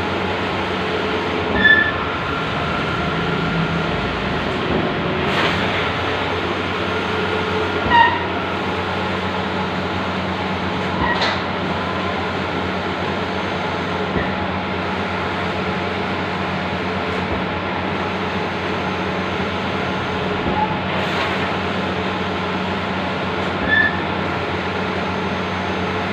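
Large-format outdoor printing machine running: a steady mechanical hum and hiss with a constant low drone, and a few short high chirps at intervals.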